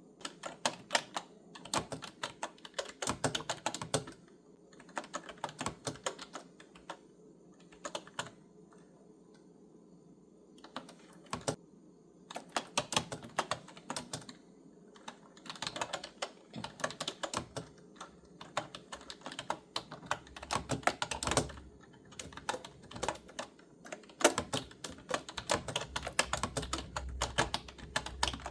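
Clicky computer keyboard being typed on in bursts of rapid keystrokes, with short pauses between runs.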